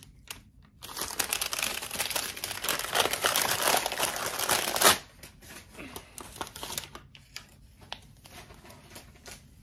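Packaging of a small yarn advent gift being unwrapped by hand: wrapping crinkles and tears for about four seconds and stops abruptly, followed by lighter, scattered rustles and crinkles.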